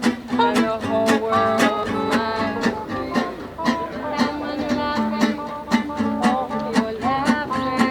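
Fast bluegrass-style music of plucked strings, banjo and guitar, with a rapid run of picked notes over a steady bass line.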